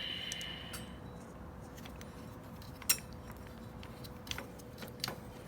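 Light metallic clicks and clinks of an ATV front brake caliper and pads being handled and fitted over the brake disc, with a brief high scrape at the start and one sharper click near the middle.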